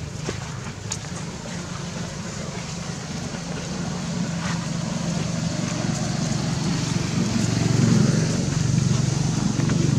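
A low, steady engine hum that grows gradually louder, loudest about eight seconds in, with a few faint clicks.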